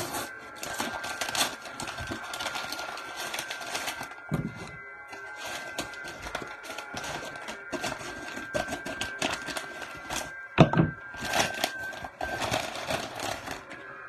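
Packaging being opened and handled by hand: irregular crinkling and rustling, with a single sharp knock about ten and a half seconds in. A faint steady high whine runs under most of it.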